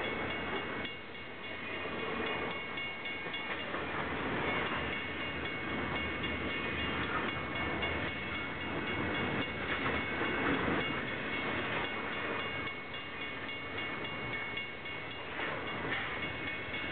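Double-stack intermodal container cars of a freight train rolling steadily past, with the wheels running on the rails.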